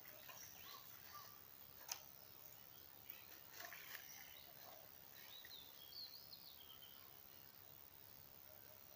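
Faint outdoor ambience: small birds chirping, with a short run of quick calls a little past halfway, over a steady high hiss and a sharp click about two seconds in.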